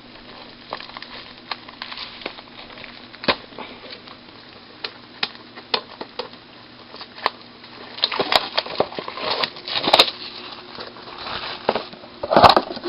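Trading-card pack and cards being handled: scattered crinkles and small clicks, busier about eight seconds in and again near the end.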